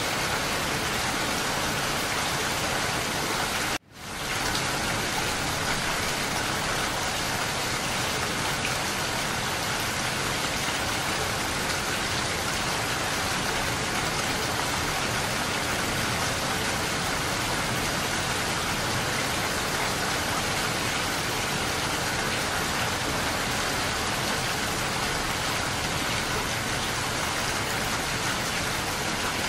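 Steady rain. The sound cuts out abruptly for a moment about four seconds in, then fades back up.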